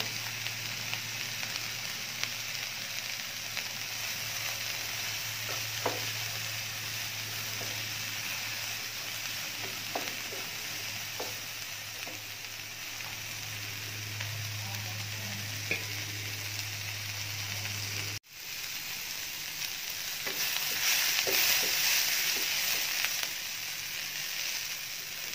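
Diced onion, capsicum, carrot and tomato sizzling in oil in a nonstick frying pan while being sautéed, stirred with a wooden spatula that taps and scrapes the pan now and then. The sizzle grows louder for a few seconds near the end as the vegetables are turned over.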